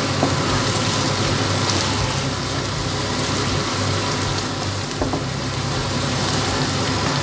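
Chopped onions and green chillies frying in olive oil in a pan: a steady sizzle, with a wooden spatula stirring through them and a couple of light knocks.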